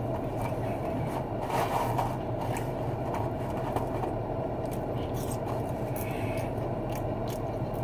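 Steady low hum of an idling car heard inside the cabin, with scattered faint scrapes and rustles of fast-food packaging handled in the lap.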